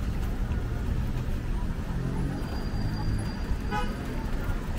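Steady street traffic running, with one short vehicle horn toot a little under four seconds in.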